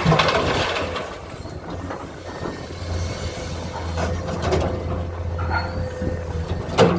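Komatsu excavator working while it loads a dump truck: a steady diesel drone with a thin steady whine above it. Clanking knocks come at the start, and a loud clank near the end.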